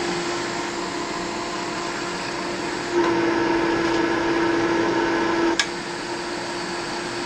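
Sunlar electric centrifugal forge blower running: a steady hum with a rush of air. It gets louder about three seconds in, and a sharp click a little over five seconds in brings it back down.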